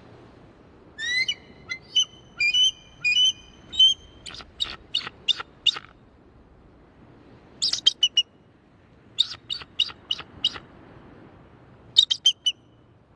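Bald eagle calling: several series of high, chittering, piping notes. The first series starts about a second in and ends in a quick run of falling notes, with further bursts around the middle and near the end.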